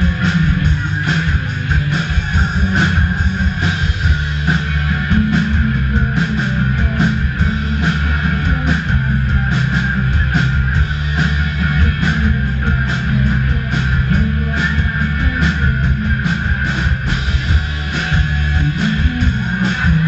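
Live punk rock band playing loudly: electric guitars strummed over bass guitar and a drum kit, without a break.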